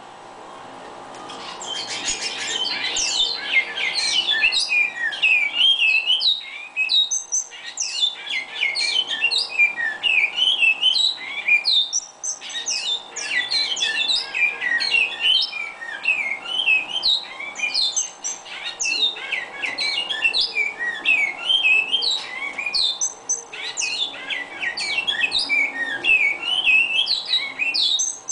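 Great-billed seed finch (bicudo) singing a long run of rapid, varied whistled notes, starting about a second and a half in and broken by a few brief pauses. A faint steady hum sits underneath.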